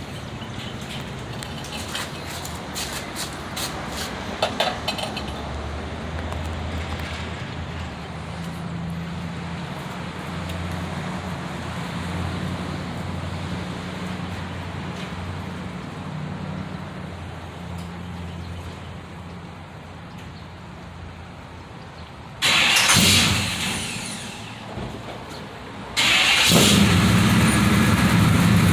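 Exhaust of a 383 small-block Chevy V8 through Hedman headers, 2.5-inch pipes and MagnaFlow mufflers, running low and steady at first. About 22 seconds in it suddenly gets much louder and then fades. Near the end it jumps loud again and stays loud.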